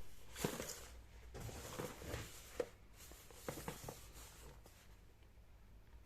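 Light rustling and a few small clicks from hands handling a watch box and its packaging.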